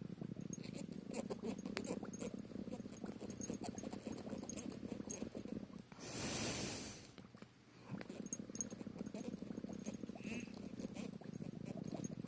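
A low, steady purring close to the microphone. About six seconds in, a breathy rush of noise lasts about a second, then the purring stops for a moment and starts again.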